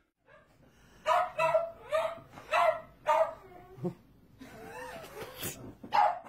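A dog barking: five short barks about half a second apart, then a whining, gliding sound and one more bark near the end.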